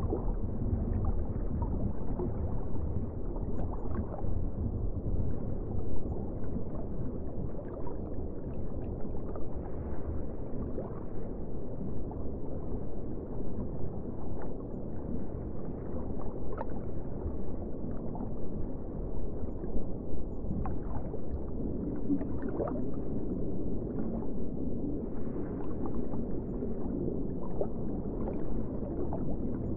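Muffled underwater ambience: a steady low rush of water, with scattered faint clicks and crackles.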